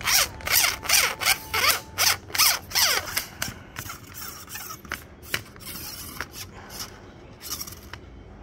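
ZTYL 6.3 m carbon telescopic hand fishing pole being collapsed: its sections slide down into one another in a quick run of rasping slides, about two or three a second, several with a falling squeak. After about three seconds they give way to fainter clicks and scrapes.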